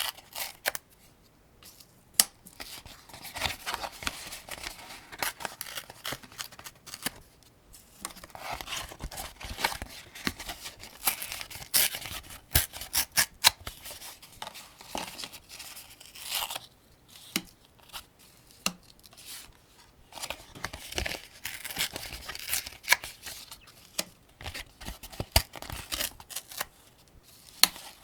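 Rifle cartridges being pressed one at a time into a 75-round AK-47 drum magazine: sharp metallic clicks at uneven intervals, with scraping and rubbing between them.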